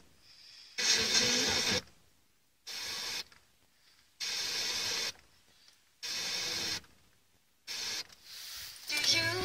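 Pioneer car radio's FM tuner stepping between frequencies during a band scan: about five short bursts of noisy, weak reception, each under a second, with the audio muted in between.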